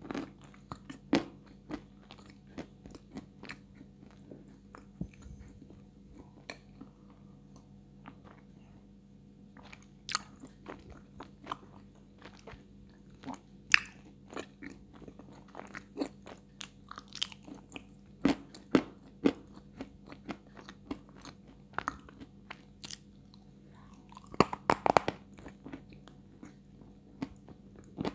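Close-miked crunching and chewing of a medium-hard chunk of white edible clay, in irregular sharp crunches with a louder flurry near the end.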